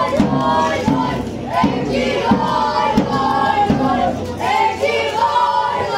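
Football supporters singing a chant together over a steady drum beat, about four beats every three seconds.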